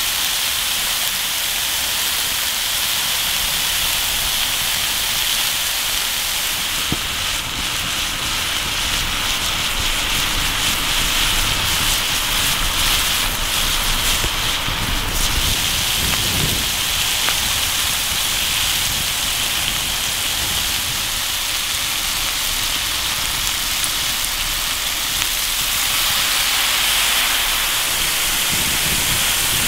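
Chicken and vegetables sizzling steadily in a pan over a wood fire, with crackling from the fire for several seconds in the first half.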